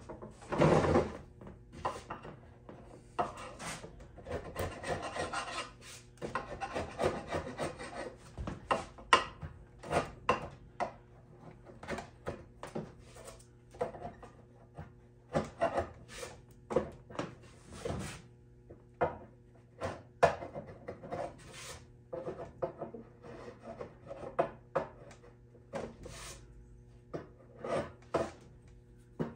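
Hand scraper drawn over the wooden side of an old machinist's chest, scraping off the old gummy finish before sanding: a long series of short, irregular scraping strokes, some in quick runs.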